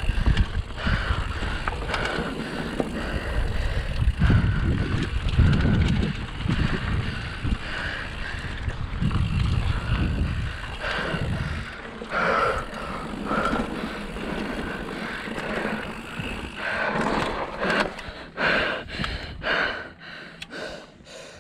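Mountain bike running down a dirt bike-park trail: tyre noise and the bike rattling over rough ground, with a heavy low rumble, likely wind on the microphone, through the first half. A quick run of sharp knocks near the end.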